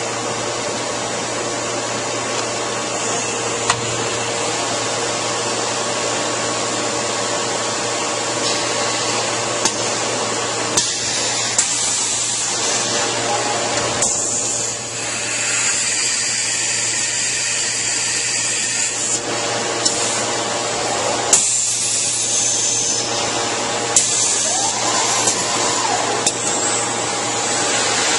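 Busellato Jet Optima S2 CNC woodworking machining centre running: a steady mechanical hum and whine with several constant tones, broken by occasional sharp clicks as the panel is clamped on the suction pods and the working head moves into position. Near the end a tone rises in pitch as a motor speeds up.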